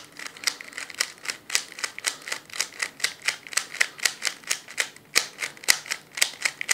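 Plastic 3x3 Rubik's cube clicking as its layers are turned in quick succession, about four clacks a second, with a brief pause about five seconds in.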